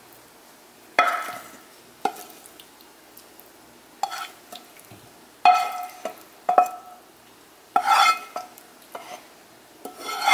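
Wooden spoon scraping and knocking against a frying pan as pieces of chicken and potato are scooped out onto a plate. There are about seven sharp knocks, each ringing briefly.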